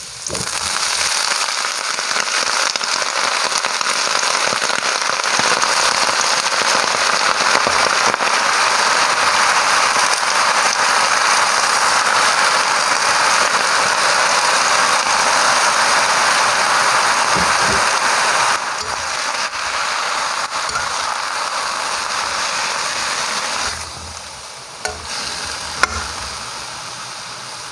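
Stir-fry in hot oil in a steel wok, crackling and sizzling loudly. The sizzle eases about two-thirds through and again near the end as a pile of napa cabbage and other vegetables cools the pan, with a few sharp knocks of the metal spatula against the wok near the end.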